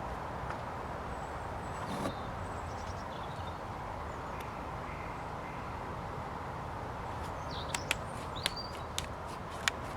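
Steady outdoor background noise with a few short bird chirps and several light, sharp clicks in the last few seconds.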